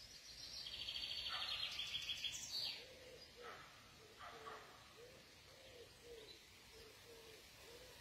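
A songbird sings a fast, buzzy, high trill for about two seconds, the loudest sound. Then a low call repeats about twice a second for the rest, over faint outdoor ambience.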